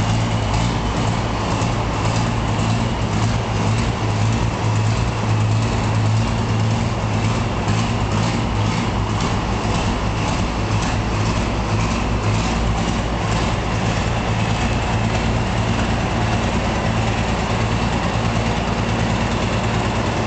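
Ford Major tractor's six-cylinder turbo diesel engine idling steadily shortly after a cold start, with a faint steady high whine above the low engine note.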